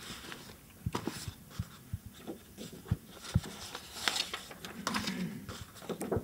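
Papers and books being handled and shuffled on a table: scattered light knocks and clicks with rustling, and a short low murmur about five seconds in.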